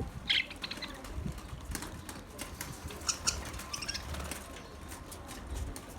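Budgerigars chirping in short, scattered calls: a quick chirp near the start and a cluster of higher chirps about halfway through, over low thumps and rustling.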